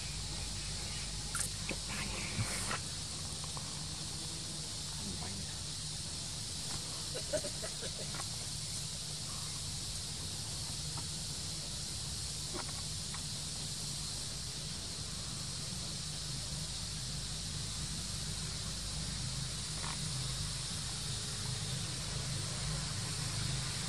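Steady outdoor background: a high hiss over a low hum, with a few faint clicks and taps here and there.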